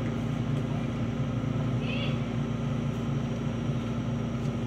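Diesel engine of a small hydraulic excavator running steadily while it digs the ditch, a constant low drone. A brief high chirp sounds about two seconds in.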